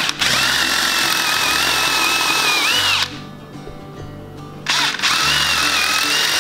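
Power drill boring into a pine board with a twist bit, run in two long bursts with a pause of about a second and a half between them. Its whine holds steady and rises in pitch just before each stop.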